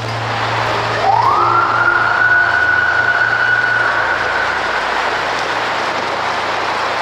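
Music: a single high tone slides up about a second in and holds steady for several seconds over a low sustained note that fades away.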